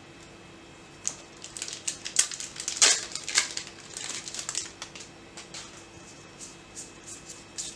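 MetaZoo trading cards and a foil booster pack handled by hand: crackling and crinkling with quick card clicks, thickest and loudest about three seconds in, then a few scattered clicks.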